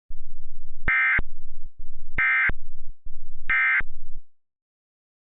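Emergency Alert System End-of-Message signal: three short bursts of warbling SAME digital data tones, about a second and a quarter apart, closing the tornado warning. A low buzz runs under the bursts and stops just after the last one.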